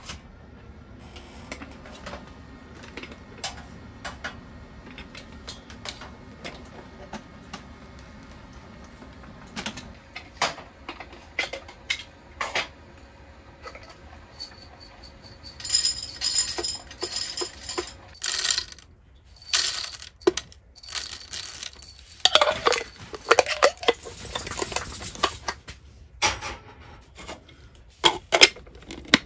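Coffee gear handled on a camp table: many clicks and knocks of metal and plastic, and whole coffee beans rattling into an electric coffee grinder's metal cup, with loud clattering stretches in the second half. Near the end the grinder's clear lid is fitted on.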